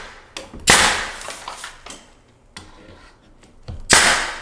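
Pneumatic nail gun firing nails into wooden door casing: two sharp cracks with a short ringing tail, about three seconds apart.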